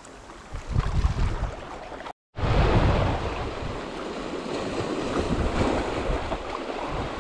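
Waves washing on the shore, with wind buffeting the microphone as a low rumble. The sound cuts out for a moment about two seconds in, then comes back louder.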